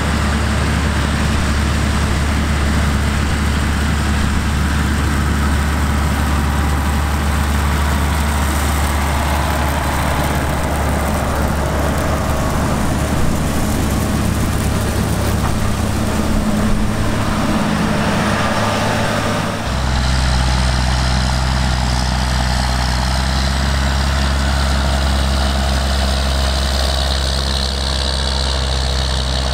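John Deere 9520 four-wheel-drive tractor's six-cylinder diesel engine running steadily while it pulls a grain chaser bin across stubble. The engine note changes abruptly about two-thirds of the way through.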